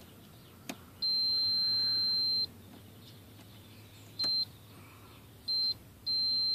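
GT-CVAH parasitic-draw tester beeping with a single high steady tone as its probe tips are touched to fuse contacts. It gives a solid beep of about a second and a half, two brief blips, then another long beep starting near the end. A steady solid beep is the tool's signal that the circuit under test is flowing no current.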